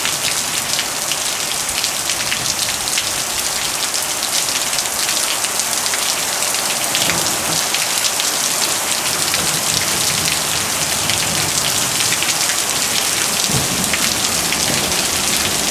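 Steady rain from a thunderstorm: a dense, even hiss full of tiny drop hits, with no break.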